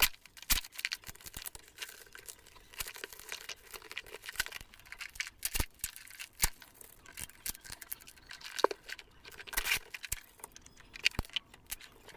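Plastic wrapping on a parcel being torn open and crumpled by hand, in irregular crinkling rustles and short rips.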